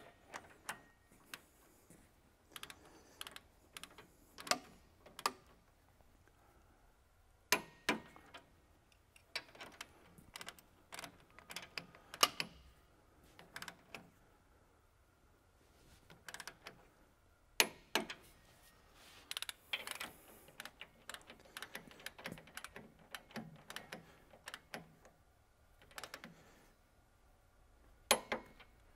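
Scattered sharp metal clicks of a torque wrench, set to 175 foot-pounds, ratcheting and clicking as the shear bar bolts are tightened to torque. There are quiet gaps between the clicks, and they come in a quicker run of small clicks later on.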